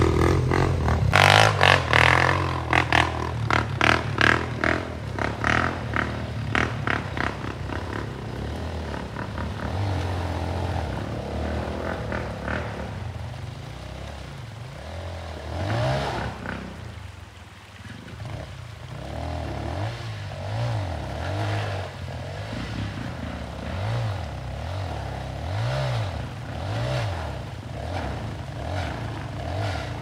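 200 cc off-road motorcycle engine revving hard for the first several seconds. It then falls back to throttle blips, rising and falling about once a second, as the bike works its way up a steep, leaf-covered dirt slope.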